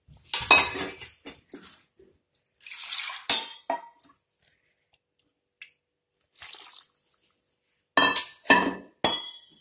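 Water splashing and pouring into a clay pot of fish curry and coconut paste, with metal clinks and scrapes from a steel mixer jar. The sounds come in short separate bursts, the loudest cluster, with ringing clinks, near the end.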